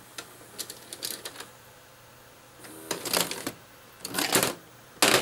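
Scattered light clicks and rattles over a low steady hum, then three louder rustling, clattering bursts in the second half, the last one the loudest.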